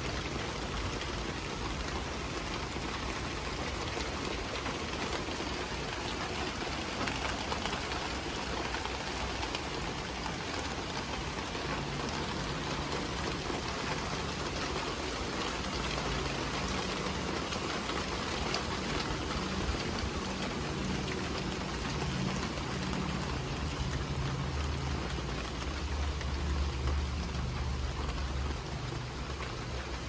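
Steady rain falling and pattering on the yard and patio surfaces, an even hiss, with a low rumble that swells in the second half and is strongest a few seconds before the end.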